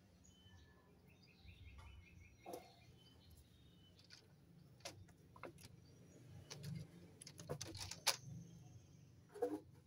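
Light knocks and rattles of a wire-mesh cage as a kitten paws and jumps at it, several times, loudest near the end. Faint bird chirps and a short trill behind.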